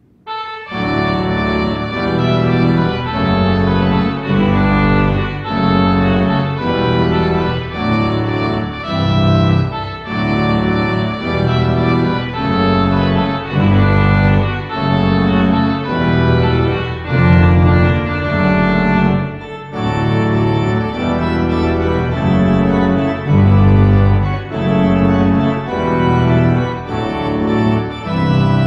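Church organ playing a postlude: full chords changing about once a second in a steady rhythm.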